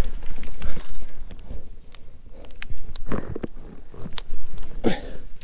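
Close rustling and crunching of dry leaf litter and twigs as a person moves prone on a forest floor, with gear and a rifle brushing the ground, and a few sharp clicks about three and four seconds in.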